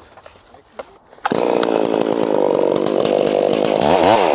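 Chainsaw cutting in suddenly about a second in and running at high revs, making the back cut into a standing maple trunk. Its pitch wavers briefly near the end.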